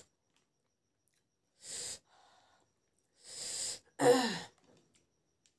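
A woman breathes out hard through her mouth twice, then lets out a short voiced sigh that falls in pitch. The sigh is the loudest sound.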